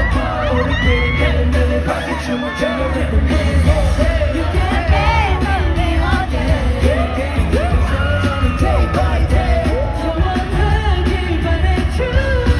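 Live Korean pop song played loud through a PA, with singing over a heavy bass beat and yells from the audience.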